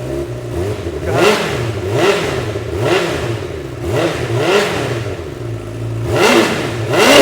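Honda CBR1000RR's inline-four engine through its stock exhaust and muffler, revved from idle in about seven quick throttle blips, each rising and falling in pitch.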